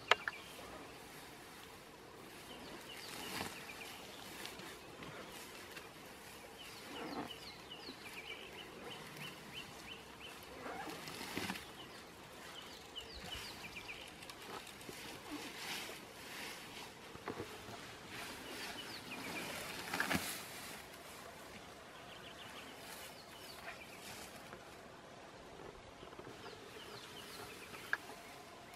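African elephant feeding on grass and leaves: irregular rustling and tearing every few seconds as it pulls vegetation up with its trunk, with small birds chirping repeatedly. A sharp click right at the start.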